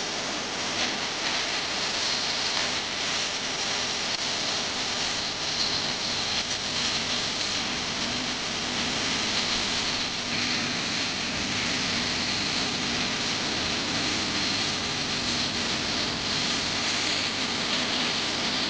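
Crowd noise from a large audience: a steady, dense wash of sound with no break.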